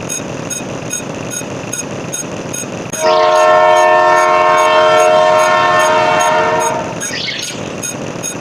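Train horn sound effect: a chord horn of several tones sounds about three seconds in and holds for nearly four seconds. Under it runs a steady noisy rumble with an even ticking, about three ticks a second, and there is a short falling squeal as the horn starts and another soon after it stops.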